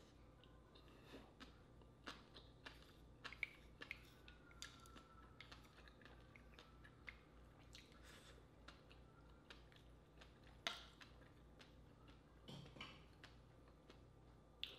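Quiet close-miked eating sounds of a person chewing a raw-style oyster: soft wet mouth clicks and lip smacks scattered irregularly, with one sharper click a little past the middle.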